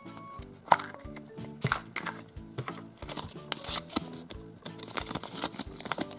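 A plastic Kinder Surprise toy capsule clicks open about a second in, then a folded paper leaflet rustles and crinkles as it is opened out. Background music with a steady beat plays throughout.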